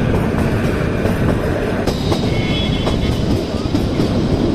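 Kalka–Shimla narrow-gauge toy train running: a steady rumble and rattle of the carriages on the track, with a brief high-pitched tone about two seconds in.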